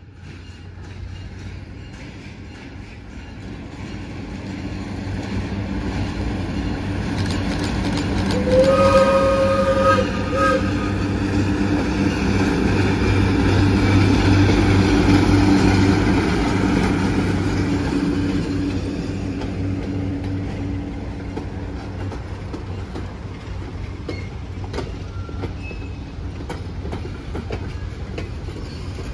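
ALCO S2 diesel locomotive's turbocharged engine growing louder as the train approaches, with one horn blast of about two seconds roughly nine seconds in. The engine is loudest a few seconds later, then slowly fades as the train passes and moves away.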